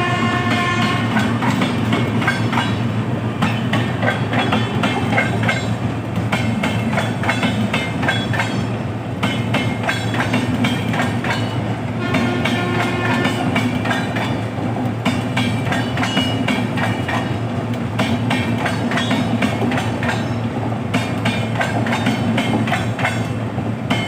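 A train hauled by a WAP-7 electric locomotive running over rail joints, with a steady clickety-clack over a low hum. A locomotive horn ends about a second in, and a fainter horn note sounds briefly about halfway through.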